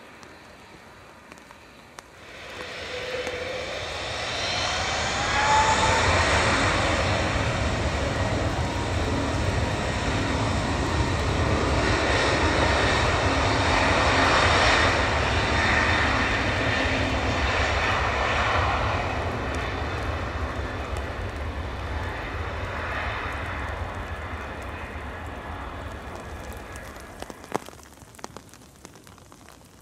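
Emirates Airbus A380-861's four Engine Alliance GP7270 turbofans spooling up to takeoff thrust about two seconds in, with a rising whine. Then comes the loud, steady engine noise of the takeoff roll on a wet runway, which fades away over the last several seconds as the jet climbs out.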